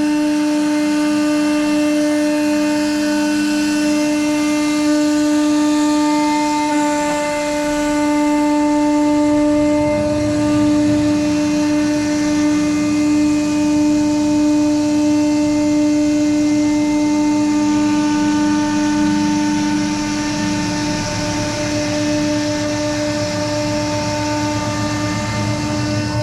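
CNC router spindle running, a steady high whine that holds one pitch throughout, with a lower rumble from the machine's moving and cutting underneath.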